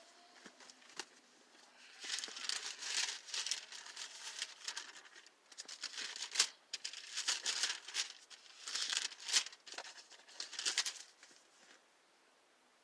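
Paper rustling in a run of quick bursts, like the thin pages of a book being flipped through while searching for a passage.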